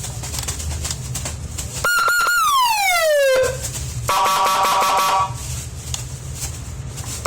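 Electronic multi-tone siren horn sounding through a horn loudspeaker: about two seconds in, a high tone pulses briefly and then falls steadily in pitch in a down-sweeping wail, and about a second later it gives a short multi-tone horn blast of about a second.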